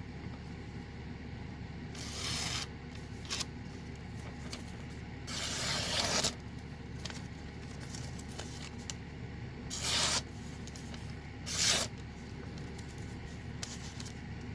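A C28N steel blade of a folding knife making test slicing cuts: about five short, scraping swishes, the longest lasting about a second, showing the edge is very sharp.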